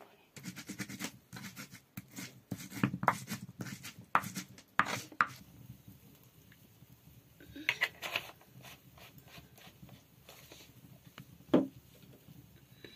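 A round hand stone rubbed and rocked on a flat stone slab, grinding food by hand, with repeated scrapes and knocks. After about five seconds it stops; a short pouring sound follows about eight seconds in as oil goes into an iron wok over a wood fire, and a single sharp knock comes near the end.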